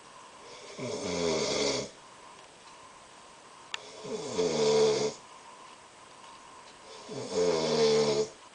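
A man snoring in his sleep: three snores about three seconds apart, each lasting a little over a second and carrying a clear pitch. A brief click comes just before the second snore.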